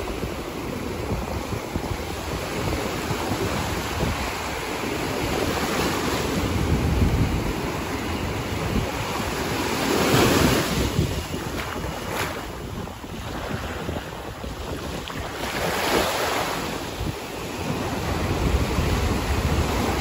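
Ocean surf: small waves breaking and washing in over shallow sand, rising in two louder surges about ten and sixteen seconds in. Wind buffets the microphone with a low rumble.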